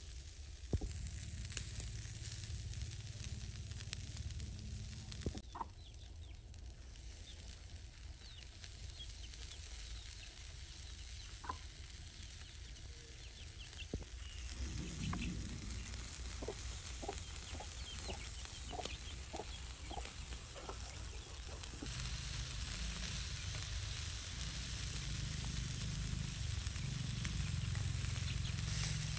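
Pork ribs sizzling as they cook, with a chicken clucking in a run of short calls, about two a second, around the middle.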